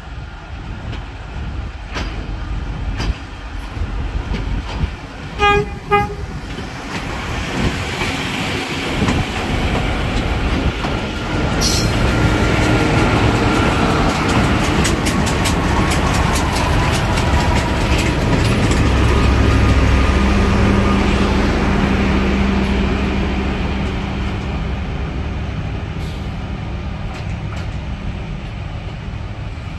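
Convoy of diesel track maintenance machines rolling past on the rails at low speed. Two short horn toots about five seconds in, then the engines and wheels grow louder with a run of rapid clicks over the rail joints, and the sound slowly fades as the machines move away.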